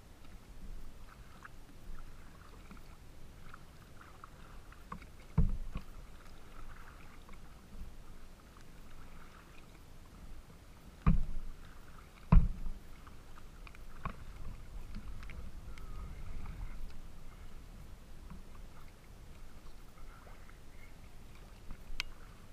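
Small choppy waves lapping and slapping against a plastic kayak hull, a steady low wash broken by a few sharp knocks, the loudest about halfway through.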